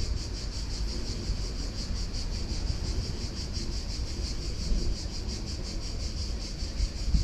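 Insects chirping in a high-pitched, fast, even pulsing rhythm, with a low wind rumble on the microphone underneath.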